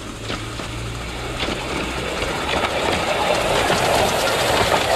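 Quarter-scale model electric interurban car running along its track and passing close by: a rolling rumble with scattered clicks that grows louder as it comes near.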